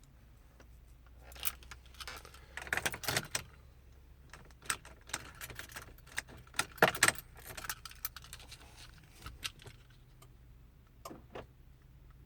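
A bunch of keys jangling, with irregular jingles and clicks that come in clusters, loudest a few seconds in and again near the middle.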